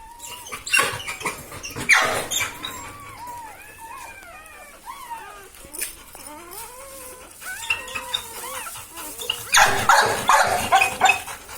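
Newborn Labrador puppies whimpering and squeaking, many short rising-and-falling cries overlapping one another. Bursts of rustling noise come about a second in and again near the end.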